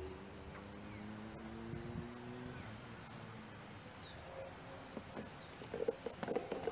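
Small birds chirping in short, high calls, several of them falling in pitch, over faint street noise. A faint steady hum stops about two and a half seconds in.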